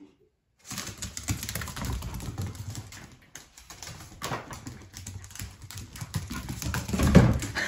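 Dogs' claws clicking and scrabbling on a hard floor as a Basenji and a boxer puppy run and play, a rapid patter of clicks with heavier bumps near the end.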